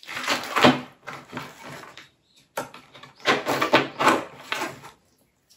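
Rustling, rubbing handling sounds in two spells, one about a second long at the start and a longer one from about the middle: someone reaching down and rummaging to swap a whiteboard marker.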